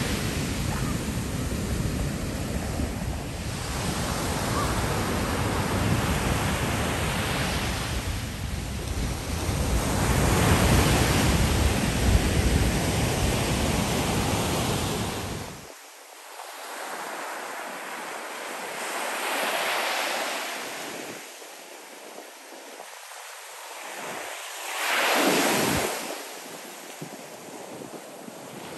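Ocean surf breaking and washing up the beach in swells, with wind rumbling on the microphone. The wind rumble cuts off suddenly about halfway, leaving the rise and fall of the waves, with one louder wash near the end.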